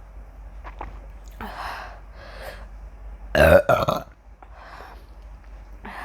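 A woman burping after gulping carbonated cola. There is one loud, long, voiced burp about three and a half seconds in, with softer breathy sounds before and after it.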